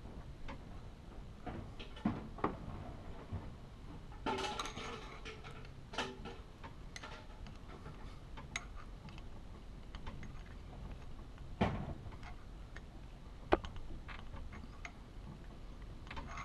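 Scattered light clicks and taps as a thin metal tool pushes rope packing into the steel packing bore of a hot tapping machine. There is a short cluster of rustling clicks about four seconds in and a few sharper knocks, the sharpest near the end, over a low steady room hum.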